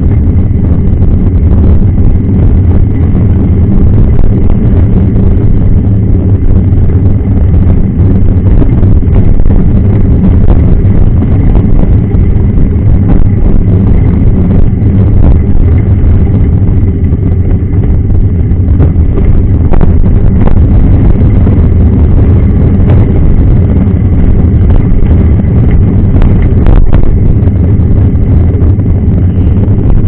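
Wind buffeting the microphone of a fork-mounted action camera on a mountain bike rolling along a gravel road. It is a steady, heavy low rumble mixed with the knobby tyre on the gravel, with occasional faint ticks and knocks.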